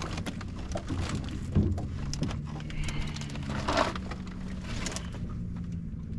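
Boat motor running at a steady low hum, with scattered knocks and a short clatter on board.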